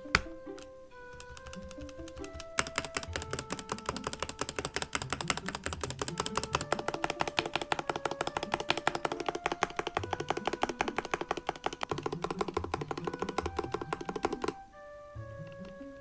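Fast typing on a Dustsilver D84 mechanical keyboard with Gateron Red switches: a rapid, dense run of key clicks that starts a couple of seconds in and stops shortly before the end.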